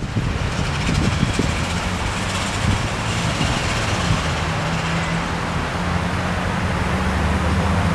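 Steady rumble of road traffic with a vehicle engine's low hum.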